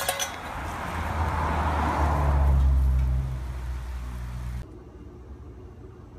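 A motor running with a steady low hum and a hiss that swells and peaks two to three seconds in. It cuts off abruptly about four and a half seconds in, leaving faint background noise.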